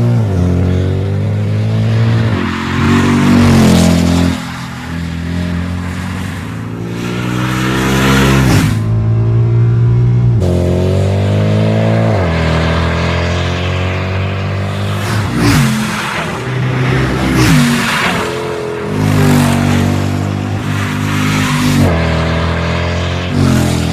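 Mercedes C63 AMG (W204) 6.2-litre V8 running through an Akrapovic Evolution titanium exhaust. It is loud and accelerates with its note climbing in pitch and then dropping sharply, several times over, with a short steadier stretch about nine seconds in.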